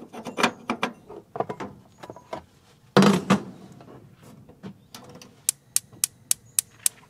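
Metal clinks and clatter of a burner cap being seated by hand on a stainless gas camp stove, with a louder knock about three seconds in. From about five and a half seconds, the stove's spark igniter clicks steadily, about three to four clicks a second, while the burner has not yet lit.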